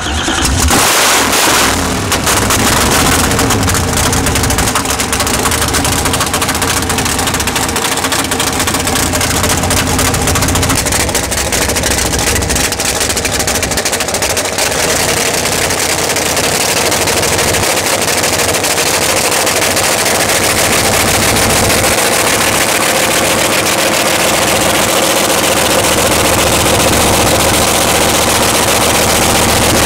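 Nitrous-fed Pat Musi racing V8 in a rail dragster, running at a loud, steady idle that comes in suddenly at the start.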